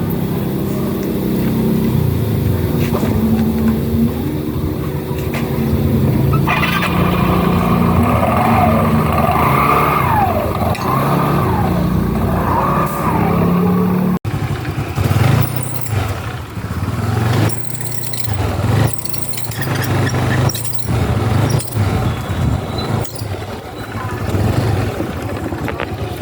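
Small scooter engine running: steady for about the first half, then, after an edit, uneven and rising and falling in level.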